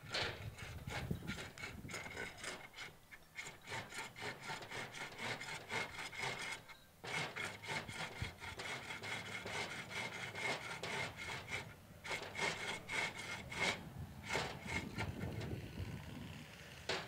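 A 12-volt VW flywheel turned by hand inside a 6-volt transaxle bell housing, its ring gear scraping against the housing in a run of rapid rasping strokes, with a short break about seven seconds in. The rubbing shows the housing still needs more grinding to clear the larger flywheel.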